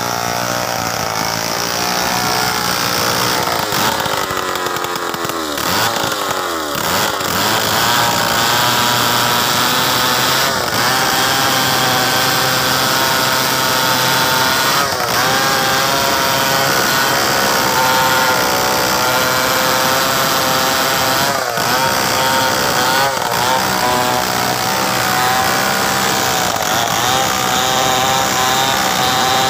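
Two-stroke chainsaw cutting into a mahogany log at high revs. The engine pitch swings up and down over the first several seconds, then holds fairly steady as the chain bites through the wood.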